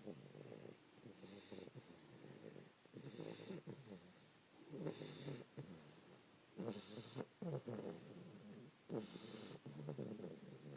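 Three-month-old English Bulldog puppy snoring in her sleep, one snore on each breath, about one every two seconds.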